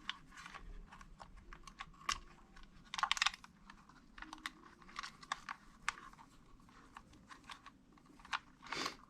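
Scattered light clicks and taps of small plastic and metal parts being handled as a radio-controlled car is taken apart, with a short rattling run of clicks about three seconds in.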